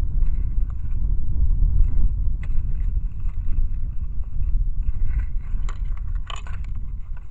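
Gusting wind buffeting an outdoor camera's microphone: a loud low rumble that swells and eases, with brief higher rustles and clicks, the strongest cluster about six seconds in.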